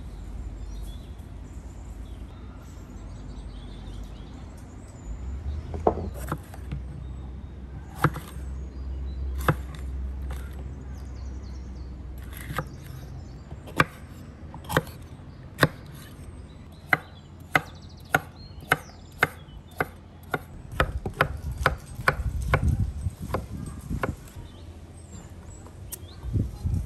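A large kitchen knife chopping red bell peppers on a wooden cutting board. The blade knocks sharply on the wood: a few spaced strokes first, then a steady run of about two chops a second.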